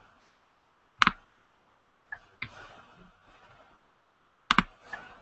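Computer mouse clicks: a handful of sharp single clicks spaced a second or so apart, with a quick double click near the end.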